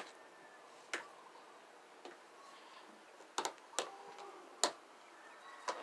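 Plastic toy animal figurines tapped and set down on a wooden railing: about seven light, sharp clicks at uneven intervals, several bunched together a little past the middle.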